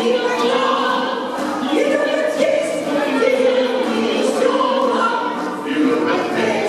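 Music with singing: a song with held, wavering vocal notes over accompaniment, played in a hall.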